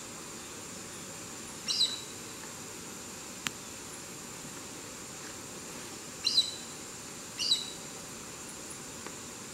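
Chestnut-eared aracari calling three times: short, high, sharp calls, one about two seconds in and two close together near the end. A steady high insect hum runs underneath.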